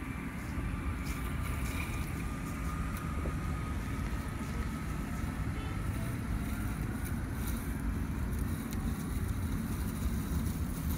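eM1000 robotic lawn mower running across grass: a faint, thin motor whine that rises slightly in pitch, under a steady low rumble of wind on the microphone.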